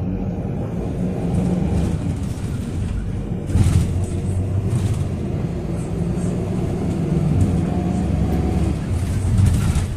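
Cabin sound of a Toyota Coaster minibus under way: a steady low engine drone with road noise. A louder rushing swell starts about three and a half seconds in.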